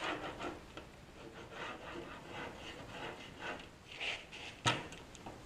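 A pen drawing repeated short scratchy strokes on a cardboard panel template, marking out a cut line, with one sharp knock near the end.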